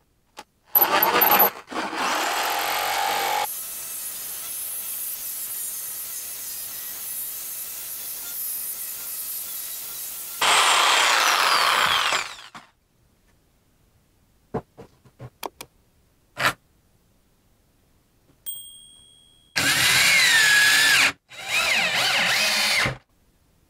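Hyper Tough corded jigsaw cutting a circle through OSB board, running for about eleven seconds, louder near the end of the cut, followed by a few clicks. Near the end, a cordless drill runs in two short bursts, its motor whine rising and falling as it drives screws into a shelf bracket.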